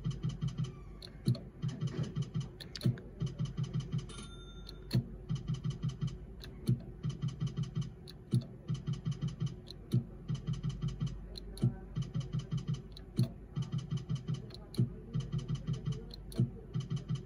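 Video slot machine's reel-spin sounds: each spin opens with a sharp click, then a quick run of ticks follows as the reels spin and stop. The cycle repeats about every one and a half seconds as spins are played back to back.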